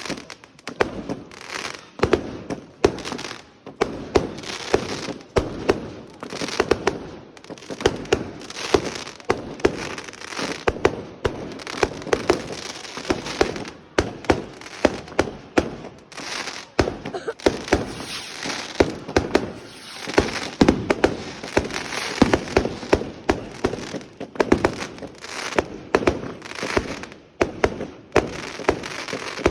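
Fireworks going off in a rapid, unbroken string of sharp bangs and crackles, several a second.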